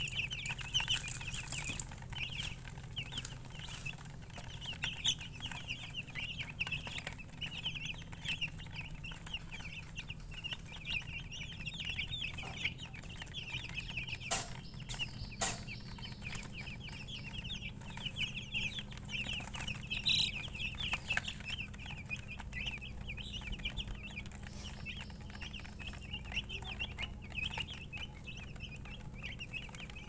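A crowd of baby chickens peeping nonstop, many short high chirps overlapping, while they peck at feed. Two sharp knocks stand out about halfway through.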